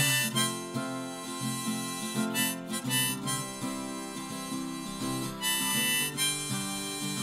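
Harmonica in a neck rack playing a melody over a strummed acoustic guitar, in phrases with short breaks between them.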